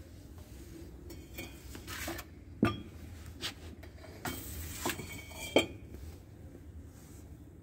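A few sharp metallic clinks and knocks, the loudest about two and a half seconds in, with brief scraping rustles between them, over a low steady hum.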